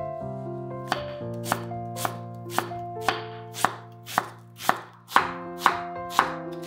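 Chef's knife chopping a white onion on a wooden cutting board, sharp even strokes about two a second, over soft background music.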